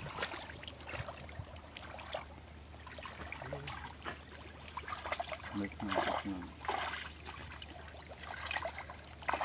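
Shallow muddy water sloshing and splashing as people wade and grope with their hands through the mud of a drained pond, with trickling water throughout.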